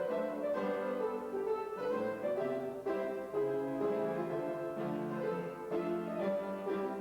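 Piano music, a flowing classical-style accompaniment of the kind played for a dance class.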